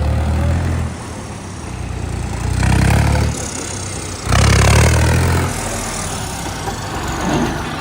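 New Holland 3630 tractor's diesel engine running, revved up three times in short surges with a steadier drone between them.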